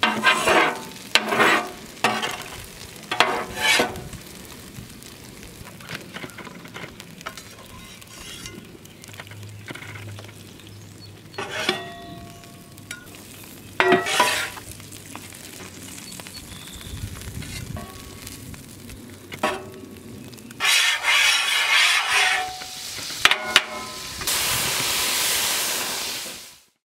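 Metal spatulas scraping and clinking on a hot flat-top griddle while eggs, burgers and bacon sizzle. There are several sharp scrapes in the first few seconds, and a loud spell of sizzling near the end that cuts off suddenly.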